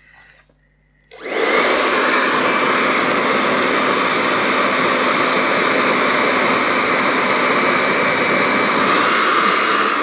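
BaByliss 3Q hair dryer switched on about a second in, its fan motor running with a loud, steady rush of air and a faint steady hum in it. A test run after repair: the dryer is working again.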